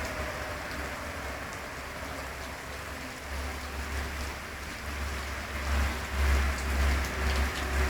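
Steady heavy rain hissing on surfaces during a thunderstorm, with a deep low rumble that swells louder over the last couple of seconds.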